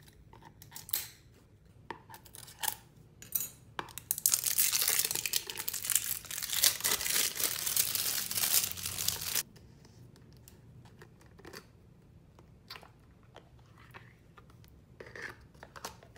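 Plastic wrapping on a tub of soothing gel being handled and torn off by hand: scattered light clicks and rustles, then about five seconds of loud continuous tearing and crinkling that stops abruptly, then light handling taps again.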